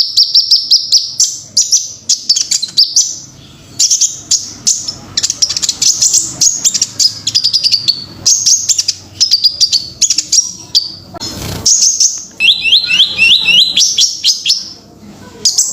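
A small songbird singing a fast, high-pitched stream of chirps and rapid trills in loud bursts with short pauses. A brief muffled thump or rustle cuts across it about eleven seconds in.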